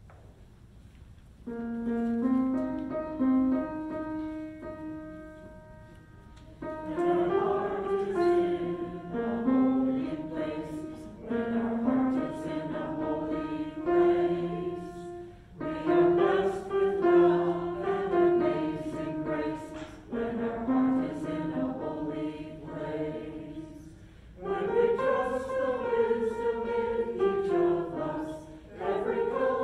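Choir singing a hymn. A few seconds of held instrumental chords open it, and the voices come in about seven seconds in and carry on in phrases.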